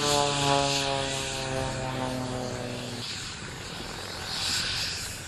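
Piston engines and propellers of Extra 300 aerobatic monoplanes, a steady droning note that slowly falls in pitch as the aircraft fly overhead. It cuts off abruptly about three seconds in. After that comes a rushing noise that swells about a second later.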